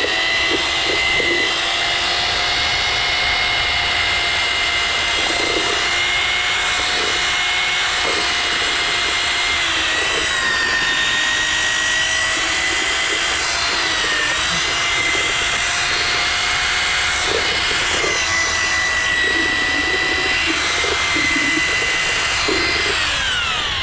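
Electric drill with a mixing paddle churning thick concrete in a bucket: a steady motor whine that sags slightly a couple of times under load, with faint knocks underneath, and winds down near the end.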